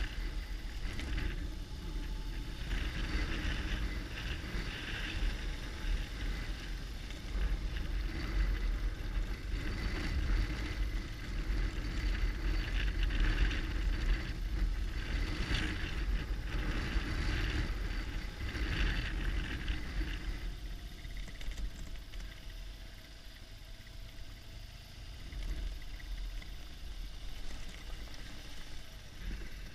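BMW R1200GS Adventure's boxer-twin engine running as the bike rides a rough dirt track, with a low rumble throughout. It gets quieter about two-thirds of the way through.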